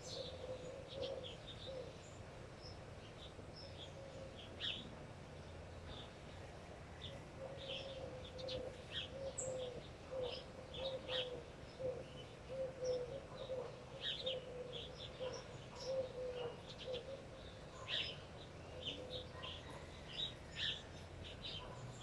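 Birds chirping in many short, high notes, with a lower call repeating in short notes underneath, over a steady low background rumble.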